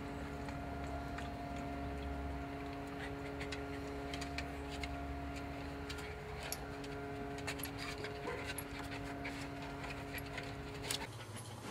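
Cairn terriers moving about on a wooden deck, with scattered light clicks of claws on the boards over a steady machine hum. The hum stops shortly before the end.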